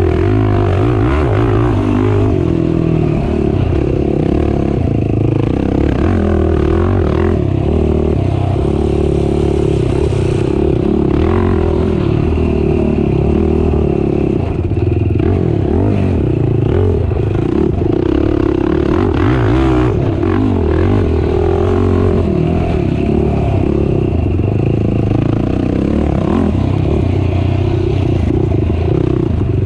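Race ATV engine running hard, its pitch rising and falling continually with the throttle, with clatter and scraping from the machine over rough ground.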